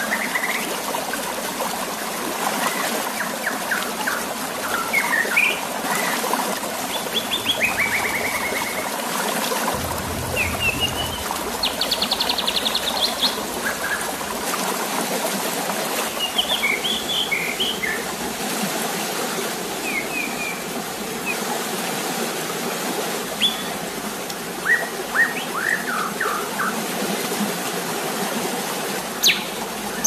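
Steady flowing water, with short bird chirps and call notes scattered throughout, some in quick runs of repeated notes.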